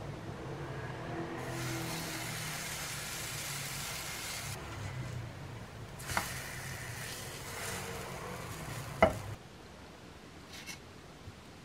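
Pancake batter sizzling in a nonstick frying pan, with two sharp clacks of a wooden spatula against the pan, the second one louder, near the end.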